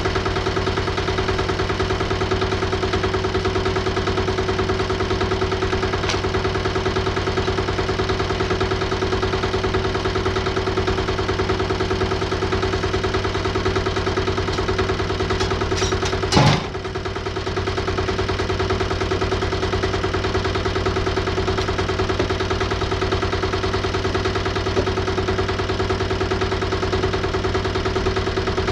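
Woodmizer LT15 portable bandsaw mill's engine running steadily at one speed, with a single loud knock a little past halfway.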